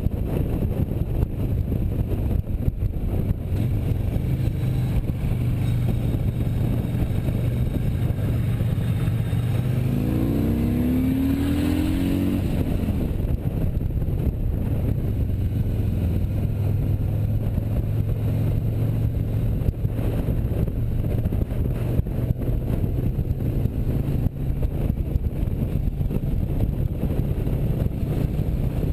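Touring motorcycle engine running steadily at road speed under wind noise. About ten seconds in a short stretch of shifting pitch briefly joins it.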